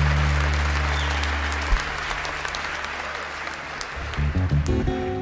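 Audience applauding while low acoustic guitar notes ring on, with a single knock a little under two seconds in. About four seconds in, the acoustic guitar starts playing as the clapping carries on.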